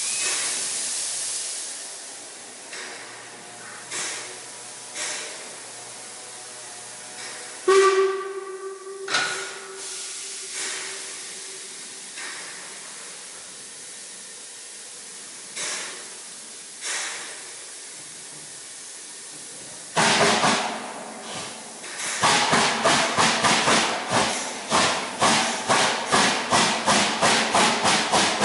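Harzer Schmalspurbahnen 99 7247-2, a narrow-gauge 2-10-2 steam tank locomotive, hissing steam from its open cylinder drain cocks, with a few single exhaust chuffs and a steam whistle blast about 8 seconds in. From about 20 seconds a loud burst of steam, then fast, even chuffing as it starts away with its driving wheels slipping.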